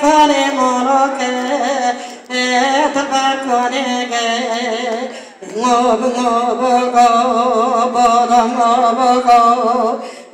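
A woman singing solo into a microphone, long held notes with a wavering, ornamented melody and no instruments heard. She breaks off briefly for breath about two seconds in and again about halfway through.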